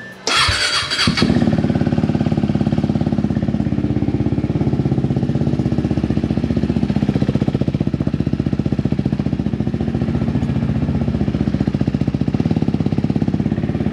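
KTM RC 390's single-cylinder engine being started: a short burst of cranking as it catches, then a steady idle with a rapid, even exhaust pulse.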